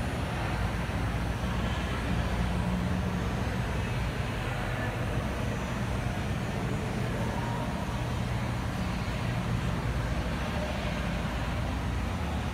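Diesel locomotive engine idling inside a locomotive shop building: a steady low drone that does not change.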